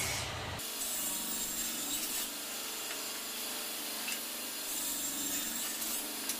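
Table saw running and cutting through glued hardwood segment blocks, a steady saw noise. A low rumble drops out abruptly about half a second in.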